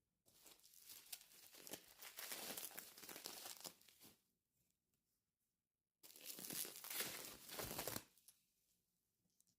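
Packaging crinkling and being crumpled in the hands, in two stretches: one of about four seconds, then, after a short pause, one of about two seconds.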